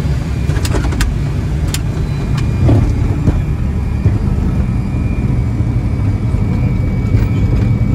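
Fokker 100 cockpit noise during the landing rollout: a steady low rumble from the wheels on the runway and the engines, with a few sharp clicks and knocks in the first three seconds.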